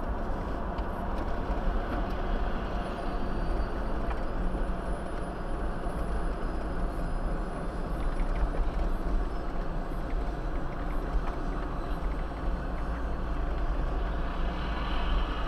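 Jeep Wrangler Rubicon driving at road speed: a steady rumble of engine, tyres and wind. A faint high whine comes in about three seconds in and fades out near the middle.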